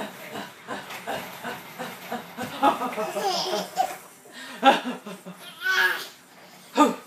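Babies and an adult woman laughing in short rhythmic bursts, with a high-pitched shriek of laughter near the end.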